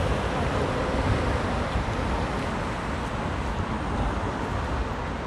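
Steady city street noise, mostly the low hum of road traffic.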